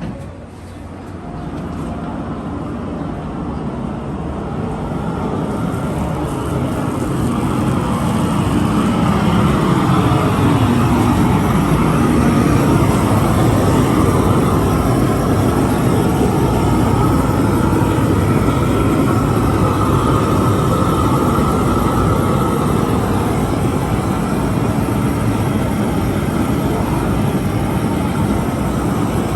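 A loud, steady motor-like drone that builds over the first several seconds and then holds level.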